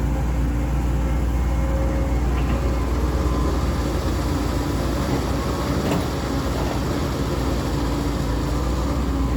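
Caterpillar 320D2 GC excavator's diesel engine running steadily under load, with a couple of faint clicks or knocks over it.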